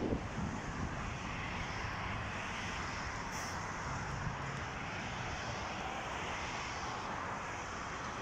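Steady rumble of road traffic, with a brief bump right at the start.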